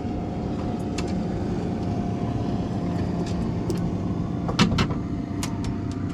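A small motor humming steadily at an even pitch, with a few sharp clicks and knocks, loudest about four and a half seconds in.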